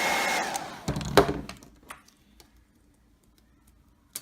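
Hairdryer blowing with a steady whine, switched off about half a second in and winding down. A loud knock follows about a second in, then a few faint clicks.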